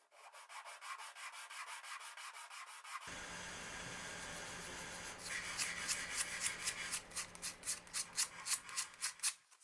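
Hand-sanding a small mahogany-and-maple wooden box: quick, even back-and-forth rubbing strokes, several a second, growing stronger about halfway through. A steady low hum joins about three seconds in.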